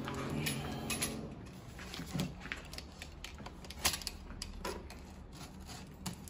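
Hands handling and pressing on a large cardboard shipping box, with scattered sharp clicks and taps against the cardboard.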